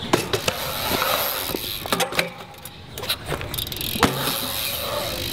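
BMX bike tyres rolling over a concrete skatepark with a steady rush, broken by several sharp clacks and knocks of the bike landing and hitting the ramps, the loudest about four seconds in.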